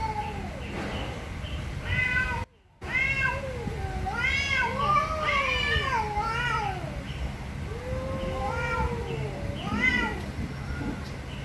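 Two cats yowling at each other in a territorial standoff: long, drawn-out calls that waver up and down in pitch, the two voices overlapping at times. The sound cuts out briefly about two and a half seconds in.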